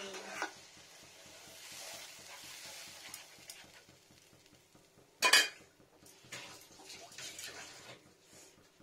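Mustard-poppy paste being poured into a frying pan of simmering liquid. About five seconds in there is one short, loud, sharp sound, followed by lighter clatter.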